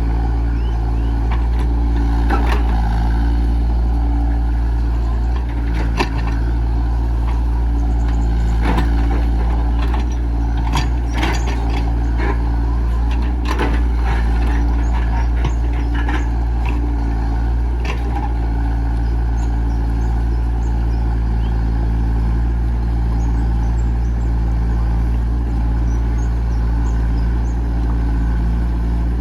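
Diesel engine of a Komatsu PC68 excavator running steadily, with scattered sharp knocks and clanks through the first half or so.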